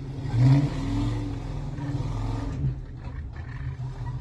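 Old flatbed rat rod truck's engine revving as the truck drives through snow. It peaks loudest about half a second in, then runs on at fluctuating high revs.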